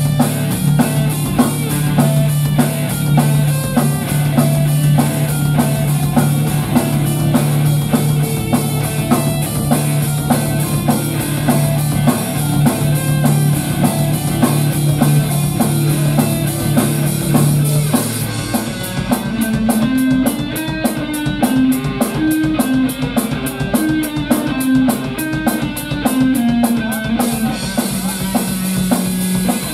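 Rock band playing live without vocals: drum kit, guitar and bass. About 18 seconds in, a long held low note gives way to a moving melodic line over fast, even cymbal strokes.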